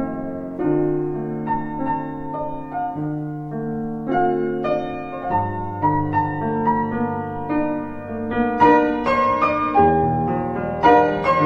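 Background piano music: slow held chords with a melody over them, the notes getting higher and busier in the last few seconds.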